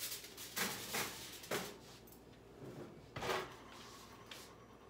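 Oven door and rack knocking as a covered baking dish is put in the oven and the door is shut: four short clunks, the last one the loudest.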